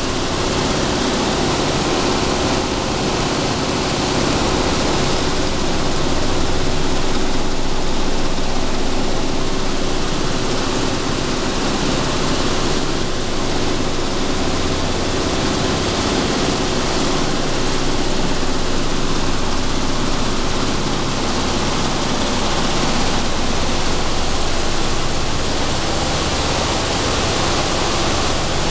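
Sunflower seed dehulling and cleaning machinery running steadily: a continuous loud rushing noise with a faint steady hum.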